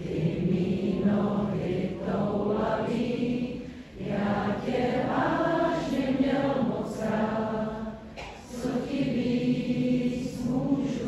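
Voices singing long, held wordless notes with a choir-like sound, in phrases broken by short pauses about four and eight seconds in.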